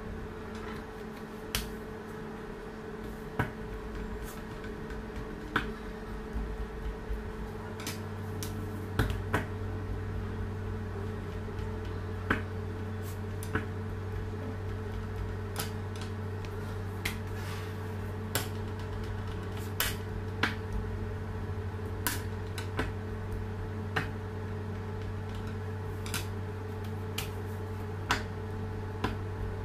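Sharp clicks and knocks every second or two as fondant is rolled out with a rolling pin on a stone countertop, over a steady electrical hum that grows stronger about seven seconds in.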